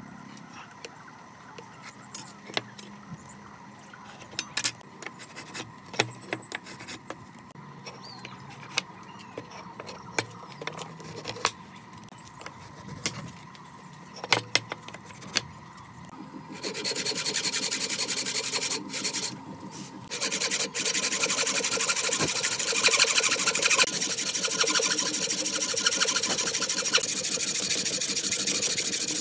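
Scattered light taps and clicks of marking out with a pencil and steel square, then, about 17 seconds in, a hand saw starts cutting into a wooden block: a steady rasp of saw strokes that drops out briefly and carries on.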